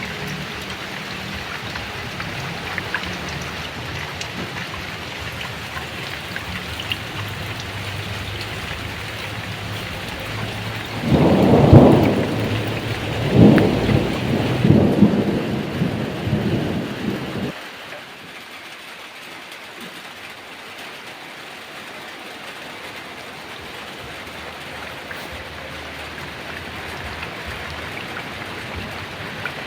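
Heavy rain falling steadily, with a roll of thunder about eleven seconds in: a loud low rumble in three or four surges that cuts off suddenly some six seconds later. The rain carries on afterwards, with less low rumble beneath it.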